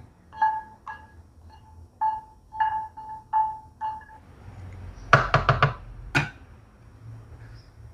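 Spatula knocking against a nonstick wok while candlenuts are dry-toasted, each knock ringing briefly at the same pitch. Then a cleaver chops on a plastic cutting board: five quick strokes, then one more.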